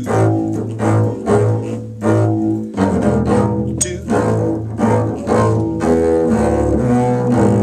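String ensemble music with bowed double bass playing a rhythmic line of repeated low notes, new notes starting about every half second under higher string parts.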